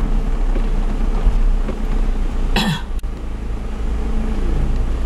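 Car cabin noise from a moving car: a steady low engine and road rumble. About two and a half seconds in, a single short cough.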